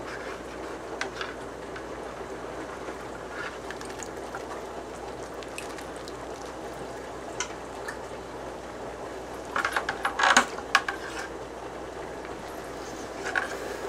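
Hang-on-back aquarium filters running: a steady hiss of trickling water over a low hum. Scattered clicks break it, with a short burst of sharp clicks and knocks about ten seconds in.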